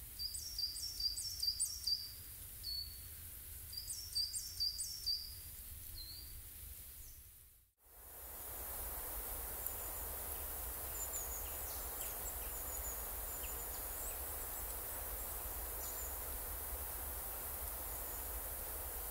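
A small songbird calling in the woods: two quick runs of four or five high, downward-sliding notes in the first five seconds. About seven seconds in, the sound fades out, then comes back as a steady forest hiss with only a few faint, high chirps.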